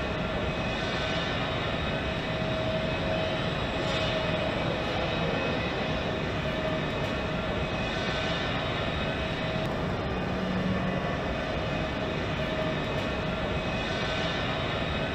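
Factory machinery running steadily, a constant mechanical drone with a steady hum, as the motorized track-mounting mechanism works a steel crawler track onto an excavator undercarriage.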